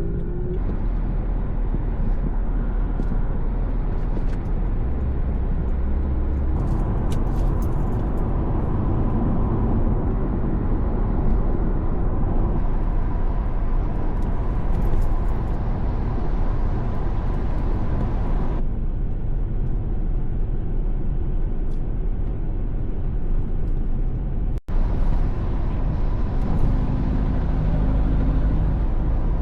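Steady low rumble of a car driving, road and engine noise, with a faint steady hum in parts. The sound drops out for an instant about 24 seconds in.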